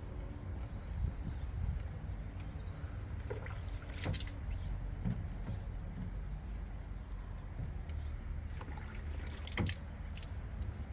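Water dripping and splashing on a car panel during wet colour sanding of the paint, with a few sharper ticks over a steady low rumble.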